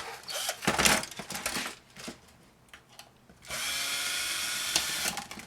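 Knocks and clicks of parts being handled, then a power drill running steadily for about two seconds, driving screws out of a laminator's housing.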